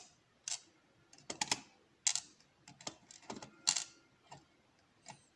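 Irregular sharp metallic clicks and taps, about a dozen, from small lock pins and springs being handled with a tool on a tray, some ringing briefly.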